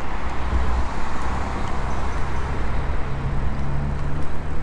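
Steady wind rush and rumble of bicycle tyres on paving while riding an e-bike, with a low steady hum coming up over the last second and a half.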